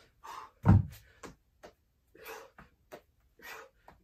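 A man breathing hard in short gasping breaths during burpees with 25 lb hex dumbbells. A heavy thud on the gym floor comes about a second in as he drops down, followed by a few lighter knocks.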